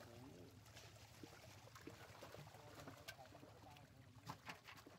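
Faint splashing of water as fish thrash in a drawn pond net and are lifted out by hand, with a few sharper splashes near the end and faint voices.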